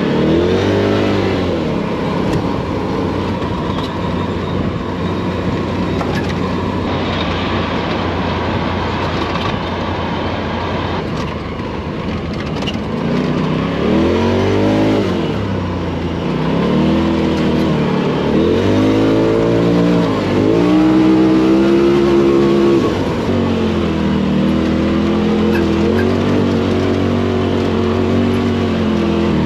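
Off-road race vehicle engine revving, its pitch climbing and dropping over and over as it works under load, with tyre and terrain noise underneath. The revving is busiest and loudest in the middle of the stretch.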